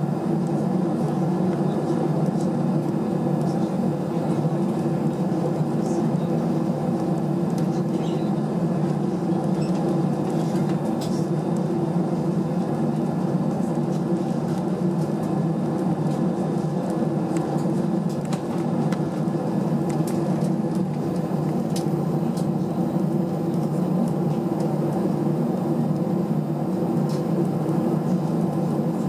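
Steady cabin hum inside an Airbus A319 while it taxis, with its jet engines at taxi power and the cabin air system running. A few faint ticks come now and then.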